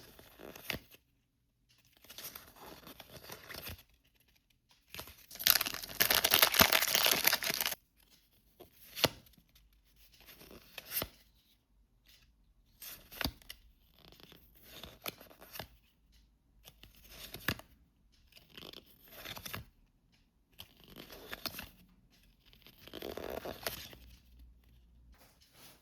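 A collectible pack's wrapper being torn open by hand, with a long loud tear about five seconds in, then repeated short crinkling rustles and clicks as the wrapper and its contents are handled.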